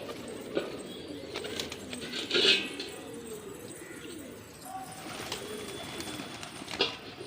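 Domestic pigeons cooing, low wavering calls repeating throughout. There is a short, louder noisy sound about two and a half seconds in and a sharp click near the end.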